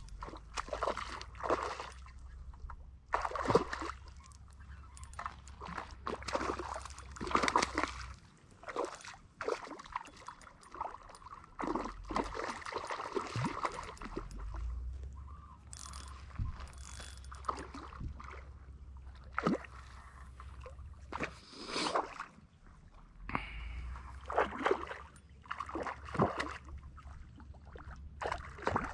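Shallow lake water splashing and sloshing at the shoreline in irregular bursts, with a low rumble that comes and goes.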